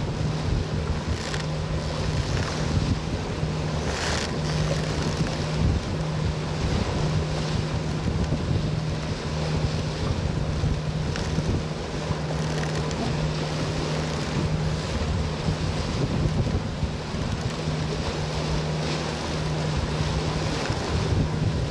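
Wind buffeting the microphone over the wash of the sea, with a few stronger gusts. Underneath runs a low steady hum with short breaks.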